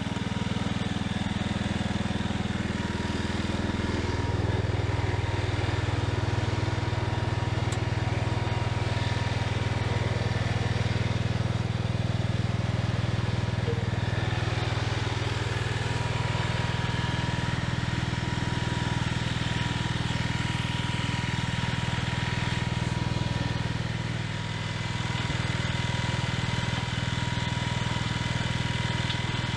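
Garden tractor's engine running steadily at a constant speed. It shifts slightly about four seconds in and dips briefly near the end.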